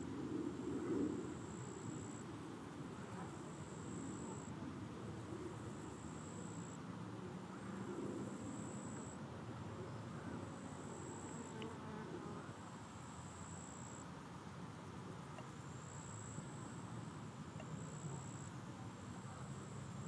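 A cricket's high, thin trill, held in long phrases with short breaks every second or two, over a low steady background rumble.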